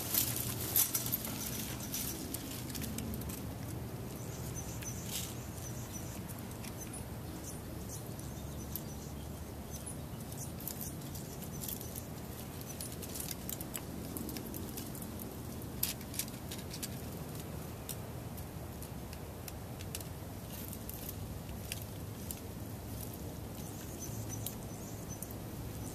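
Dry leaves and twigs rustling and crackling, with scattered light clicks and rattles of a chain-link fence as a person climbing on it reaches into a bush. The clicks come thickest in the first second or two, then more sparsely.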